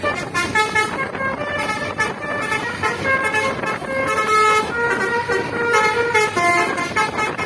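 Bus's basuri musical horn playing a tune: a string of loud horn notes stepping up and down in pitch every fraction of a second.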